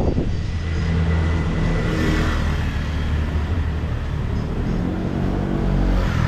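A car engine running close by, its low note shifting slightly, with a swell of traffic noise about two seconds in.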